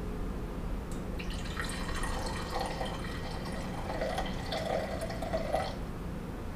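Red wine poured from a bottle into a wine glass. The liquid splashes into the glass from about a second in and stops shortly before the end.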